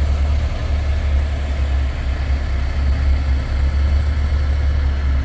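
Semi-truck diesel engine idling, a steady deep rumble.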